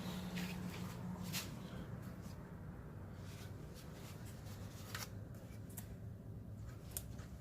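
Faint, irregular light clicks and rustles of handling, a handful over several seconds, over a low steady hum.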